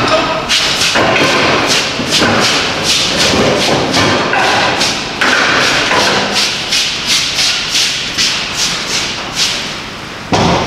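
Small wooden-sided utility trailer rattling and clanking as it is wheeled by hand out from under a hoisted workbench, a run of sharp thumps a few times a second.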